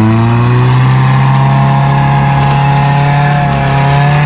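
Off-road 4x4's engine held at high revs, a steady loud drone, as the vehicle labours bogged in deep mud.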